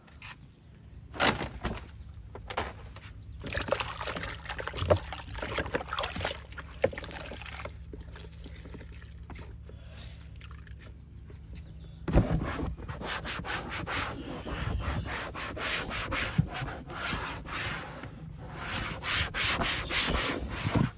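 A toothbrush scrubbing a car's plastic interior trim in fast back-and-forth strokes, starting suddenly about halfway through. Before that there are slower, scattered rubbing and handling sounds.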